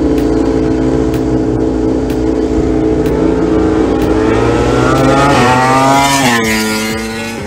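MotoGP race motorcycle approaching at high revs with its engine note climbing, then passing by about six seconds in with a sudden drop in pitch.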